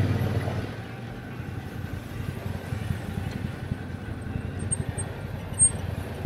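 Yamaha Ténéré 700's parallel-twin engine coming off the throttle as the bike rolls to a stop, then idling with a low, uneven pulse. A short sharp click about five and a half seconds in.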